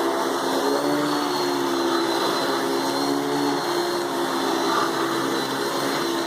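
Hoover Dimension 1000 12-amp canister vacuum cleaner with power nozzle running steadily. It makes a hum whose pitch wavers slightly, over a thin high whine.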